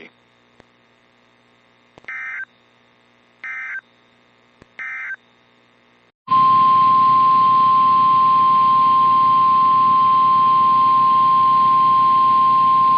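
Emergency Alert System SAME header: three short, identical warbling data bursts a little over a second apart. About a second after the last burst, NOAA Weather Radio's steady single-pitched warning alarm tone starts over a background hiss and holds, signalling that a new warning message is about to be read.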